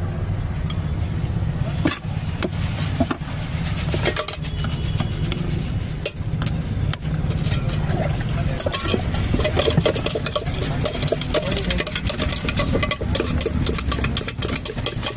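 A steel spoon stirring and clinking against a steel bowl as green bhel is mixed, the clinks getting quicker and denser into scraping about halfway through, over a steady low rumble.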